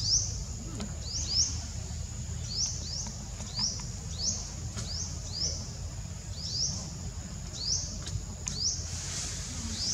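A bird chirping repeatedly: short rising chirps, often two in quick succession, about one to two a second, over a steady thin high-pitched whine and a low rumble.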